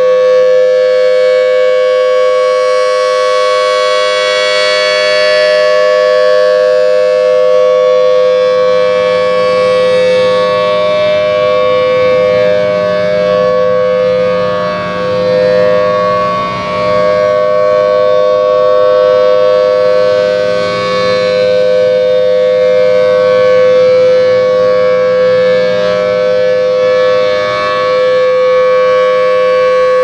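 Thunderbolt 1000T civil defense siren sounding a steady tone without rising or falling in pitch, its loudness swelling and fading as the rotating horn sweeps around, dipping most about halfway through as the horn points away.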